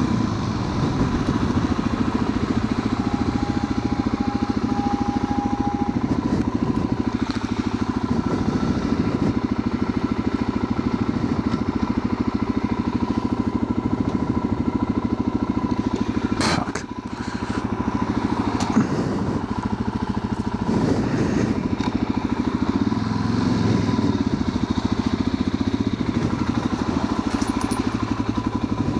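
Motorcycle engine running steadily while riding, with a brief drop in level and a sharp click a little past halfway.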